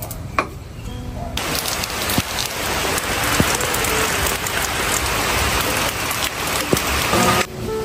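A steady rush of falling water starts abruptly about a second and a half in and cuts off near the end, with faint background music underneath.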